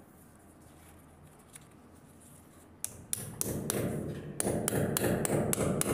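Clamp being fitted around an electrical pipe on a false-ceiling metal channel by hand. Quiet handling at first, then from about three seconds in a quick run of sharp clicks and taps over rustling handling noise.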